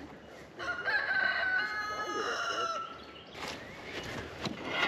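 A rooster crowing once, a single drawn-out call about two and a half seconds long that starts about half a second in and falls slightly in pitch at the end.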